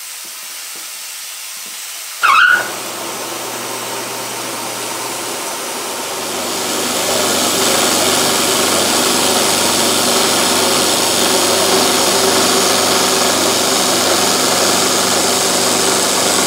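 Milling machine end mill cutting the end of an aluminum plate, with a steady hiss from the spray nozzle aimed at the cutter. A brief loud squeal comes about two seconds in. From about six seconds the cutting noise grows louder and stays steady.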